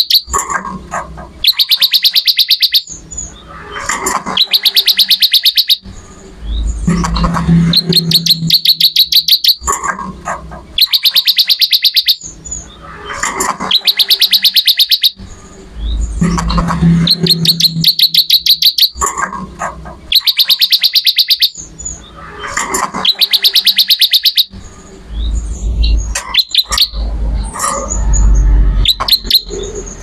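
Ciblek (prinia) singing loudly in phrases that repeat every couple of seconds: very high, rapid ticking trills alternating with shorter, lower phrases.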